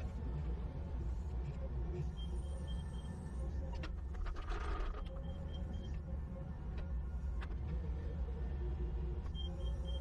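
A compact loader's engine runs steadily with a low rumble while its hydraulic auger attachment bores into soil. There is a brief rushing noise near the middle, and a few short high beeps come in small groups.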